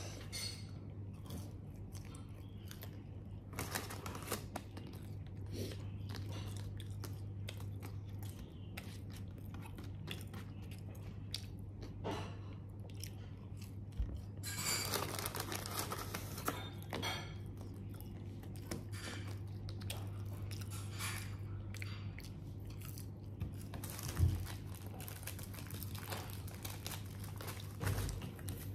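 A person eating KFC fried chicken close to the microphone: chewing and crunching the crispy coating, with short clicks as the food and paper wrappers are handled. A steady low hum runs underneath.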